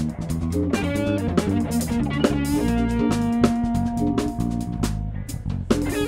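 Live funk band playing an instrumental: electric guitar over electric bass, drum kit and keyboard. A few notes are held through the middle while the drums keep time.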